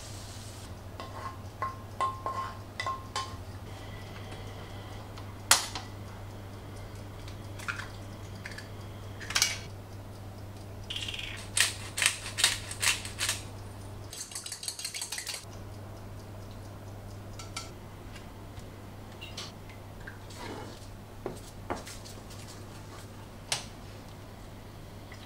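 Kitchen cookware and utensils knocking and clinking: a wooden spatula against a nonstick frying pan and wooden bowls, and eggs against a stainless steel saucepan. There are scattered sharp knocks, with a short run of rapid grinding clicks from a pepper grinder about two thirds of the way in.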